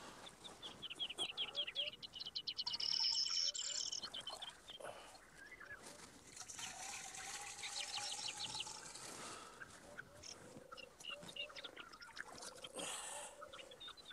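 Small birds chirping in quick high trills, in two runs: one about a second in and another around the middle.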